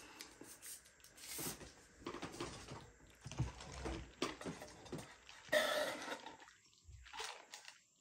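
Soft rustling and clicking of a paper straw wrapper and a paper fast-food drink cup being handled, with a louder rasping sound about five and a half seconds in.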